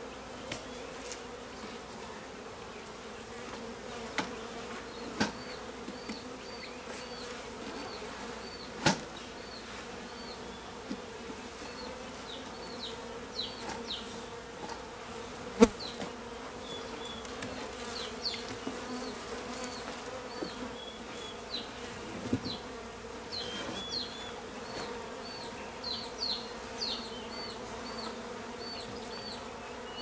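Honeybees buzzing around an opened hive in a steady hum. A few sharp knocks come through it, the loudest about halfway.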